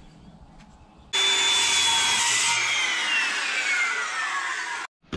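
Handheld circular saw cutting along a plywood panel: it starts suddenly about a second in, its high whine holding steady and then falling steadily in pitch through the cut, and cuts off abruptly near the end.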